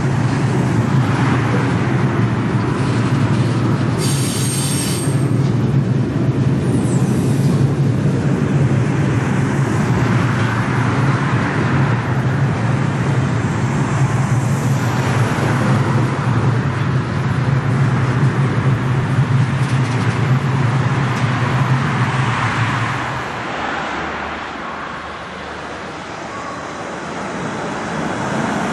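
Freight train of covered hopper wagons rolling across a railway bridge: a steady, loud rumble of wagon wheels on the rails, with a brief high squeal about four seconds in. The rumble fades away about 23 seconds in.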